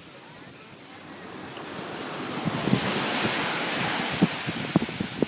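Pacific Ocean surf: a wave rushes in, swelling to its loudest about three seconds in, with wind buffeting the microphone.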